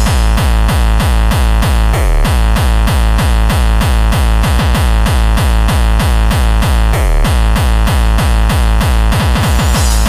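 Electronic dance track with a fast, heavy kick drum about four beats a second under layered synthesizer sounds.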